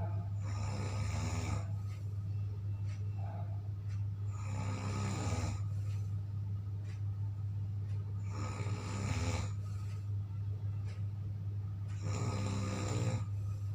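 A person snoring loudly: four long snores, each about a second long and about four seconds apart, over a steady low hum.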